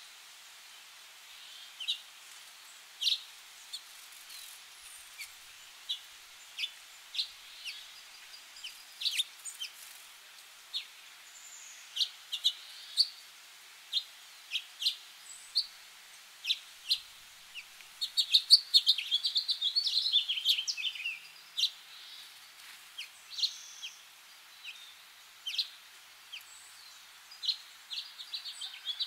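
Small songbirds chirping: scattered short, sharp chirps a second or so apart, with a rapid, dense run of twittering a little past the middle.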